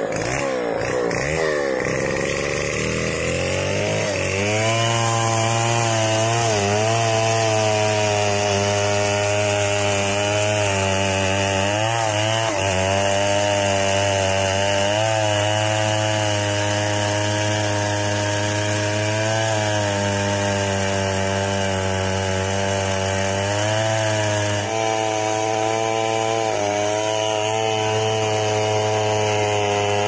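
Stihl 070 two-stroke chainsaw revving up and down, then running at full throttle as it cuts into a large mahogany trunk. Its pitch sags briefly every few seconds as the chain bites into the wood.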